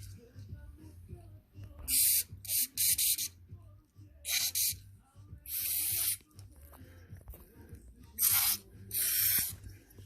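A series of about seven short hissing sprays, two or three close together about two seconds in, more around four and six seconds, and a last pair near the end, used to clean the carburetor.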